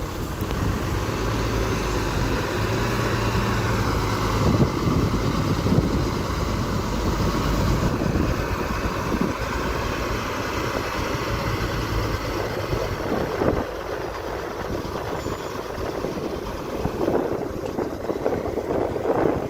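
Heavy earthmoving machine's diesel engine running steadily, with a few knocks along the way.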